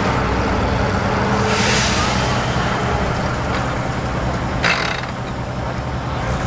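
Off-road vehicle engine running steadily, with a burst of hiss about a second and a half in and a shorter, sharper hiss near five seconds in.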